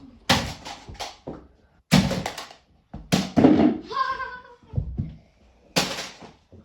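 Tennis ball being hit hard into a structure of magnetic plastic building tiles: a run of sharp knocks and thuds, each with the tiles clattering as they are knocked loose.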